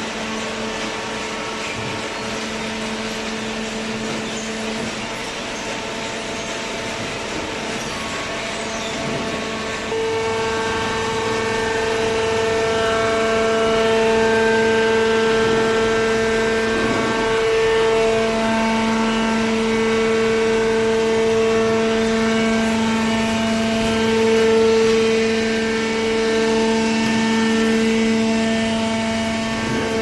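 Automatic waste-paper baler's hydraulic power unit, with its electric motor and pump running with a steady hum and whine. It gets louder and brighter in tone about ten seconds in.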